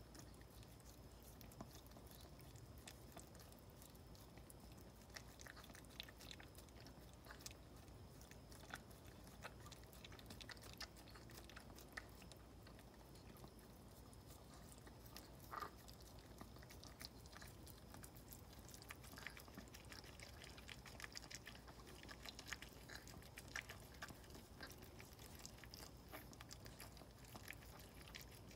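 Faint, irregular wet licking and small mouth clicks from a Maltese mother dog licking her newborn puppy clean just after giving birth.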